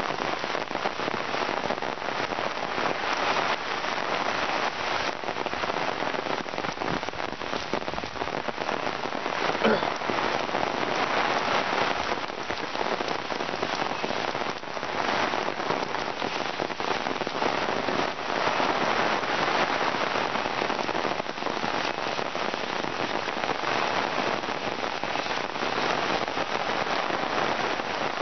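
Heavy rain falling steadily on the trees, foliage and wet ground of a forest, an even hiss that swells and eases gently.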